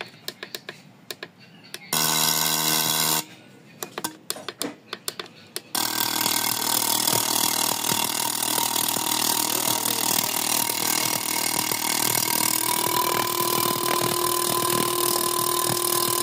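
Scattered clicks and a buzz of about a second, then a steady machine running from about six seconds in, its tone rising slightly near the end.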